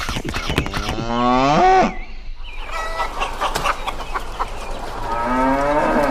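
Cattle mooing: two long moos, one about a second in and another near the end, with a few clicks and knocks between them.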